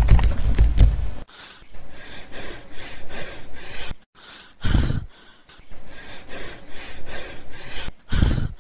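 A loud low rumble with fast clatter for about the first second, cutting off suddenly; then rapid, heavy panting breaths, several a second, with two louder puffs.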